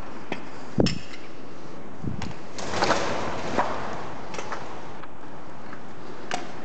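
Footsteps scuffing and knocking on a debris-strewn concrete floor over a steady hiss: a sharp knock about a second in, a longer rustling scrape near the middle, and scattered lighter clicks.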